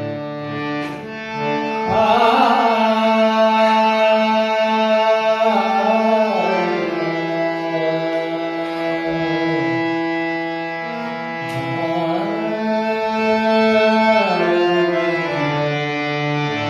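Male voice singing the slow opening of a Marathi abhang (devotional bhajan), with long held notes and sliding phrases over sustained melodic accompaniment.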